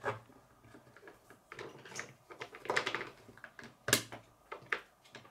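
Plastic Kid K'nex pieces clicking as rods are snapped into connectors and knocked against a wooden tabletop: a scatter of irregular sharp clicks, the loudest about four seconds in.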